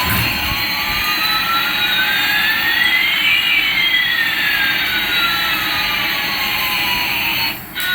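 Jet-airliner engine sound, a steady rushing hiss with two whining tones, one rising and one falling, that cross about halfway through. It dips out briefly just before the end.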